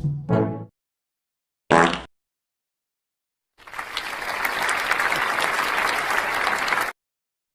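Sound-effect clip of a crowd applauding for about three seconds, starting and stopping abruptly. Before it come the last notes of a brass phrase and a brief short burst.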